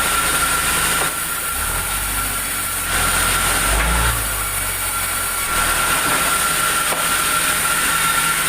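A sawmill saw running and cutting through a log, with its drive motor underneath: a steady high whine over a wide hiss and a low rumble. The hiss eases twice, for a second or two each time.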